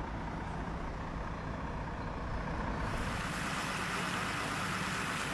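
Steady low hum of idling heavy vehicle engines. About three seconds in, a broad steady hiss joins it: a fire hose spraying water onto burning debris.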